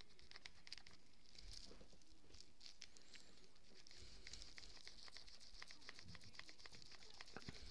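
Faint scratchy rubbing of a microfiber cloth scrubbed hard over an iPod's plastic case, with many small ticks throughout.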